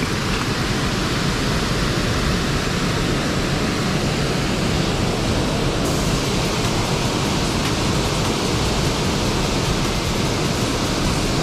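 Steady, loud rushing of water flowing from a dam.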